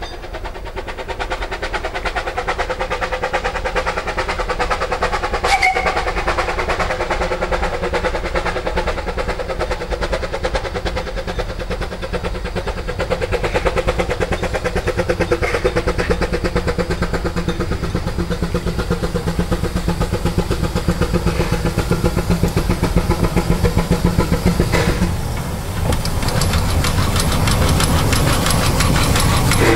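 Narrow-gauge steam tank locomotive No. 8 of the Vale of Rheidol Railway, Llywelyn, a 2-6-2T, working a train with a steady rhythmic exhaust beat. It grows louder and deeper over the last few seconds as it draws close.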